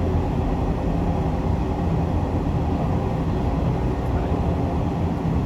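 Train running at speed, about 110 km/h: a steady low rumble of running and wheel-on-rail noise heard from on board.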